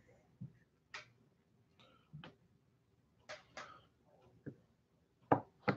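Light, scattered clicks and taps from a small plastic paint pot and a paintbrush being handled on a table, with the two sharpest clicks near the end.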